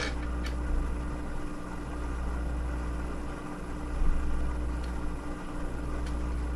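Steady low room hum, with a few light metallic clicks as a washer and bolt are handled and fitted with a hex driver, mostly in the first half second.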